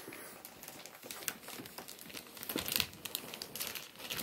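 Clear cellophane gift-basket wrap crinkling and crackling irregularly as hands grip and pull at it.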